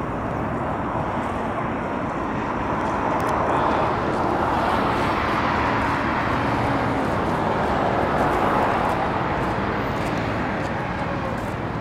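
Steady city road traffic noise, swelling about four seconds in and easing near the end.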